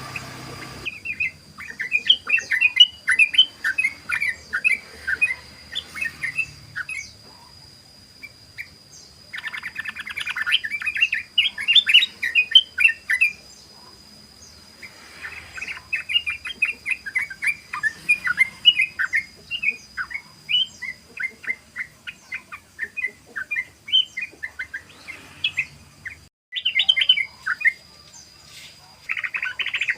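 Yellow-vented bulbul (trucukan) chattering in long runs of rapid, tumbling chirps. This is its 'ropel' song, broken into several phrases of a few seconds each with short pauses between.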